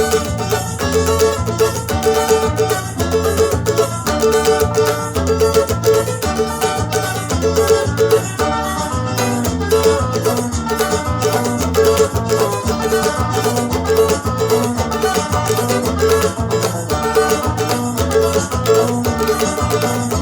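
Guitarrada music with a steady beat: a recorded track with a cavaquinho strummed along in rhythm.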